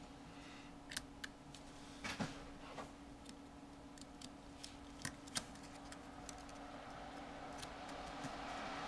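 Faint, scattered small clicks and taps as the iPhone 4 motherboard is handled and set down into the phone's metal frame, over a steady low hum.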